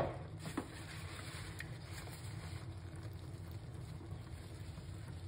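Low steady hum with a faint background hiss and a couple of light clicks.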